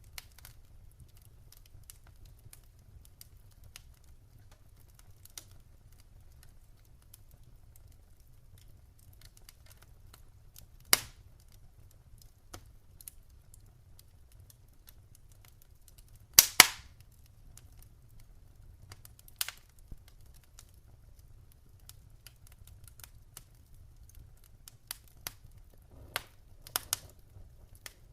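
Wood fire in a fireplace crackling: scattered sharp pops of burning logs over a steady low rumble, with two loud snaps about 11 and 16 seconds in and a flurry of smaller crackles near the end.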